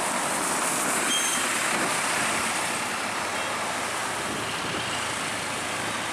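A large bus passing close by: a steady rush of tyre and engine noise that slowly fades as it moves away.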